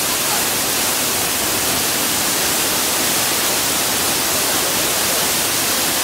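Waterfall pouring over rock: a steady, unbroken rush of falling water.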